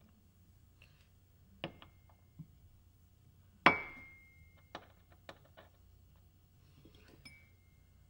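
Metal parts and tools clinking as a wheel hub is fitted back together with Allen screws: a sharp clink about a second and a half in, a louder ringing clink near the middle, and a lighter one near the end, each ringing briefly, with softer taps and knocks between.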